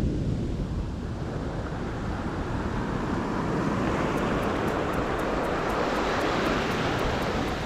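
Waves washing up a pebble beach: a steady rushing that swells about halfway through, with wind buffeting the microphone.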